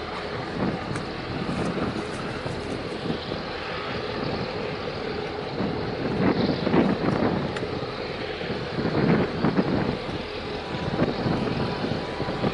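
Steady rumble of ship engines in a harbour, with wind buffeting the microphone and rushing swells of noise about halfway through and again a few seconds later.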